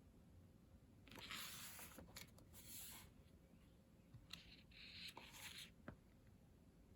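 Faint rustling and swishing of thick matte photobook pages being handled and turned, in a few short bursts with small taps between them.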